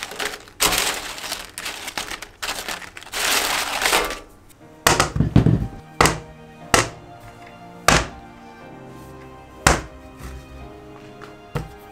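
Oven-baked potato chips crackling and rustling as hands sort through them. From about five seconds in, whole raw potatoes are set down one at a time on a plastic cutting board, making several dull thunks.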